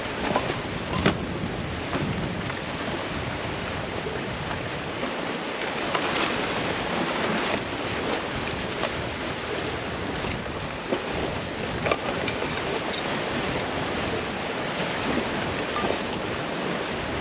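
Wind buffeting the microphone in a steady, gusty rush, with a few brief rustles and knocks of gear being handled.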